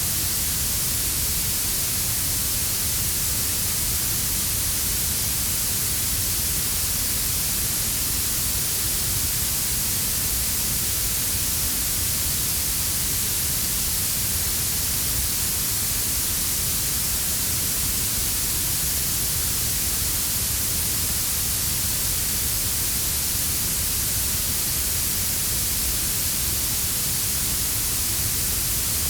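Synthetic warm blue noise: a steady, even hiss weighted toward the treble, layered over a quieter brown-noise rumble in the bass.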